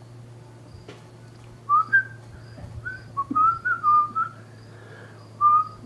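A man whistling a song that is stuck in his head, a run of quick notes starting a couple of seconds in, then a held note near the end.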